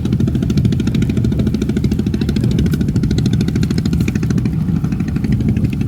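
A small engine running steadily, with rapid, even pulses and a low, heavy sound.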